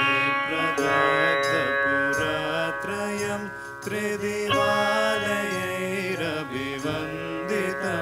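Indian classical-style music: a melody of held notes that glide from one pitch to the next, over a steady drone.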